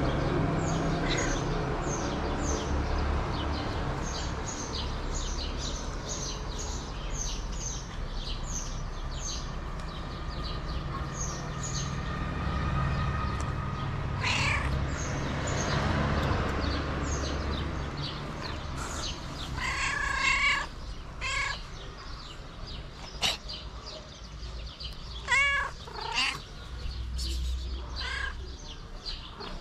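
Calico street cat meowing a few short times from about halfway through, while small birds chirp rapidly in the background during the first half.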